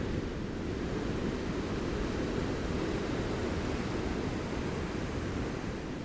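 Ocean surf breaking on the beach: a steady, deep wash of noise with no pause.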